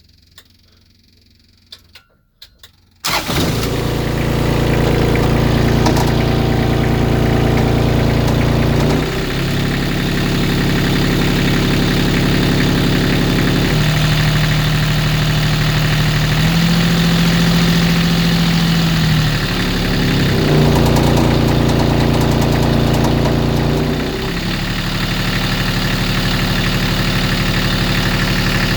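Kubota D1105 three-cylinder diesel starting abruptly about three seconds in, after a few faint clicks, then running with its speed dropped and raised several times. It knocks at idle, and the knock goes away when the revs come up; the owner wonders if it is rod knock.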